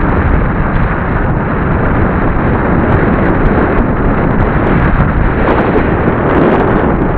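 Wind buffeting the microphone of a camera worn by a cyclist descending fast on a road bike: a loud, steady rush of noise.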